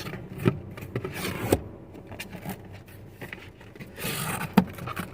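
A cardboard box and its packaging being opened and handled by hand: scraping and rustling with several sharp knocks, and a longer rustle about four seconds in.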